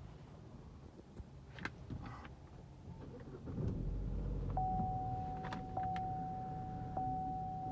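Chevy Cruze's 1.4-litre turbo four-cylinder starting about halfway in and settling to a steady idle, heard from inside the cabin. Soon after, a steady electronic tone sets in, with a brief tick about every second.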